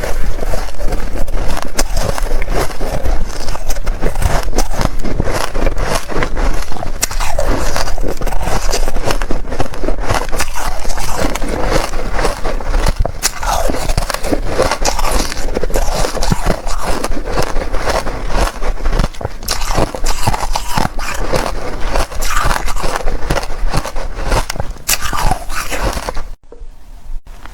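Close-up biting and chewing of reshaped, powdery ice: dense, continuous crunching and crackling. It cuts out briefly about a second before the end.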